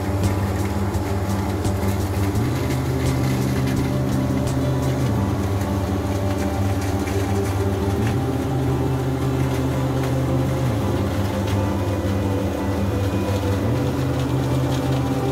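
John Deere 1450 CWS combine running steadily as it harvests maize with a six-row Olimac Drago corn header. Background music plays over it, with low chords that change every two to three seconds.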